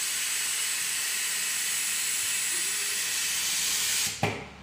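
Steady hiss of air cooling the hot head of a KD 2020 COF/ACF bonding machine as it cools down after a 100 °C pre-bond. The hiss cuts off abruptly with a brief click about four seconds in.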